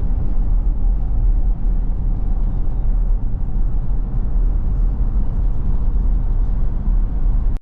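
Road and engine noise inside a moving vehicle: a steady low rumble that cuts off suddenly at the end.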